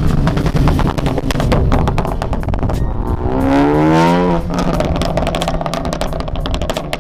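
Ford Focus ST's turbocharged 2.0-litre four-cylinder with a straight-piped MBRP turboback exhaust on a drive-by, loud: rapid crackles and pops, then about three seconds in a revving engine note that falls in pitch as the car passes, followed by more crackling.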